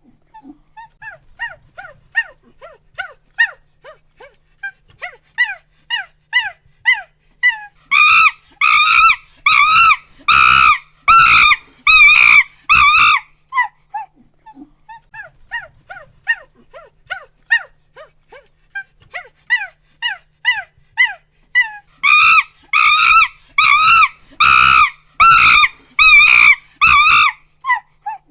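Monkey calling in runs of short hoots that build up twice into loud, rapid screaming.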